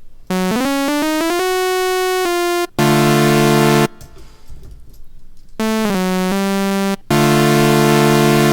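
Serum software synthesizer auditioned dry: a single bright note that climbs in small pitch steps for about two seconds, then a loud held chord; after a short gap, a note stepping down in pitch, then another held chord.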